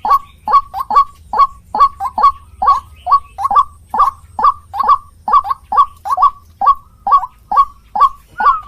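White-breasted waterhen (ruak-ruak) calling: a steady, monotonous series of harsh repeated notes, about two to three a second, often in quick pairs.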